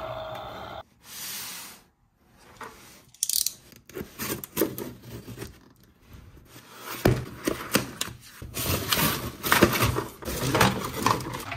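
A toy's electronic tune cuts off just under a second in, followed by a brief hiss. Then a cardboard shipping box is cut open along its taped edge and its flaps are pulled apart, with irregular tearing, scraping and crackling of cardboard, tape and a plastic bag.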